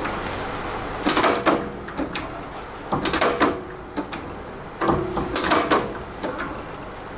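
An automatic door being worked open by hand: clunks and rattles in three bursts, about a second, three seconds and five seconds in.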